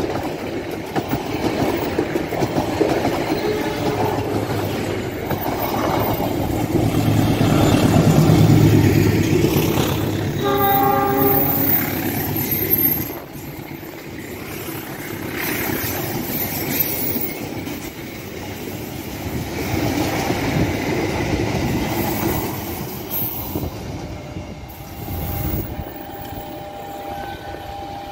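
Passenger trains running past close by, with steel wheels clattering over the rail joints and a rolling rumble that is loudest a few seconds in. A train horn sounds for about a second and a half about ten seconds in. An electric commuter train then passes on the near track.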